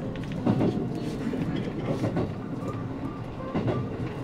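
Electric passenger train running between stations on the JR West Yamatoji Line, a steady low rumble from inside the car with three short knocks as the wheels cross rail joints.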